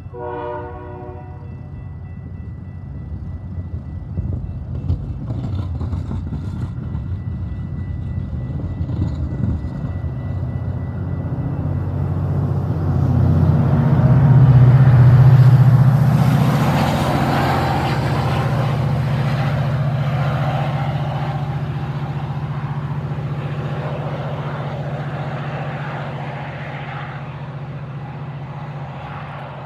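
Metra push-pull commuter train passing close by. The bilevel coaches roll over the rails, then the diesel locomotive pushing at the rear goes by about halfway through, its engine drone loudest there, and the sound fades slowly as the train pulls away. A brief high tone sounds right at the start.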